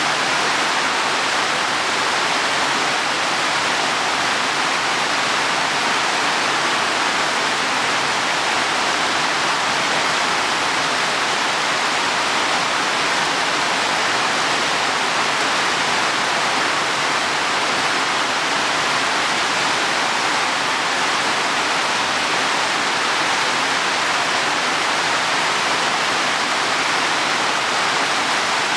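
Heavy rain falling steadily on leaves and soil: a dense, even hiss that does not change, with no single drops standing out.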